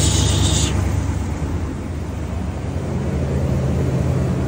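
A steady low mechanical hum, with a brief scraping rustle in the first second or so.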